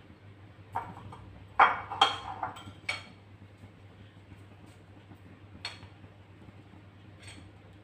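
A few sharp clinks and knocks of kitchenware being handled, loudest in a quick cluster around two seconds in, with single ones later, over a steady low hum.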